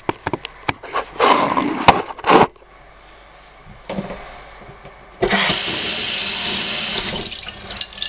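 Kitchen sink tap turned on about five seconds in: water running from the faucet as a block of minced pork is rinsed under it. Before that, knocks and rustling from handling.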